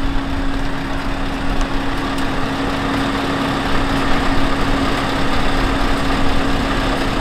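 Scania S520 truck's diesel engine idling with a steady hum.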